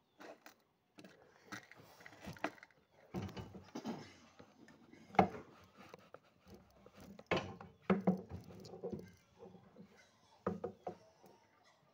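Irregular knocks, clicks and rattles of shotgun-shell reloading tools and parts being handled on a wooden tabletop, the sharpest knock about five seconds in.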